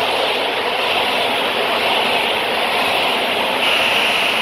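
PKP Intercity passenger coaches rolling past, a steady noise of wheels on the rails.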